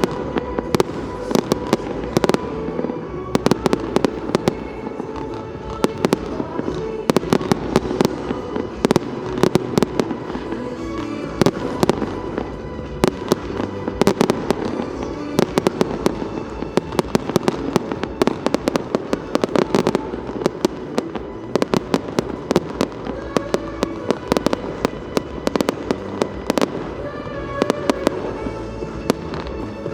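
Fireworks display with many sharp bangs and crackling reports going off in quick succession, over music playing.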